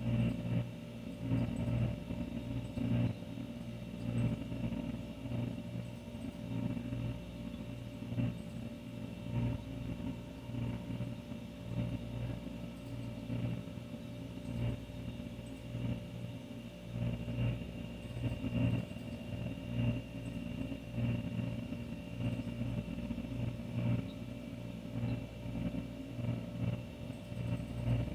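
An older refrigerator running, its compressor giving a steady low hum with a fluttering rumble and a faint high whine above it.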